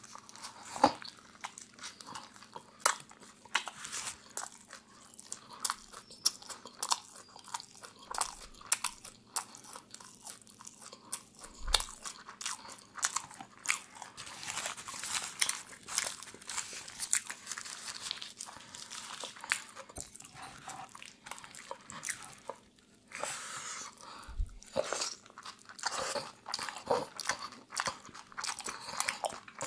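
Close-miked eating of a shawarma roll: crunching bites and chewing with many small mouth clicks, and crinkling of its paper wrapper being peeled back partway through.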